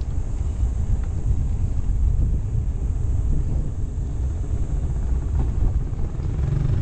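Wind buffeting a handlebar-mounted action camera's microphone while cycling at speed, with steady low rumble from the bike rolling on asphalt.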